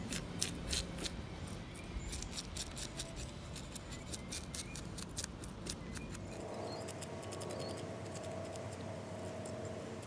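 Steel knife blade scraping scales off a small sunfish on a wet wooden board: a rapid, irregular run of sharp raspy clicks, which thins out after about six seconds.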